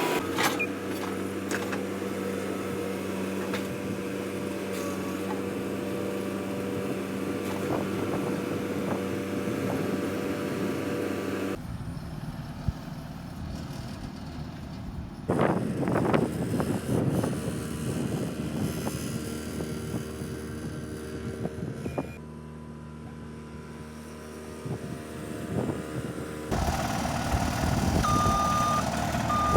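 Skid steer engine running under work in several short stretches, with knocks and scraping from the machine working the ground. Near the end a reversing alarm beeps on and off at a steady rhythm.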